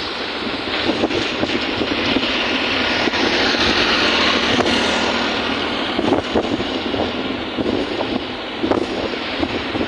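Steady rushing outdoor noise with wind on the microphone, swelling for a few seconds near the middle.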